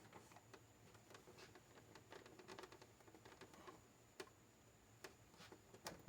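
Near silence, with faint scattered clicks and light taps, a few a little louder toward the end.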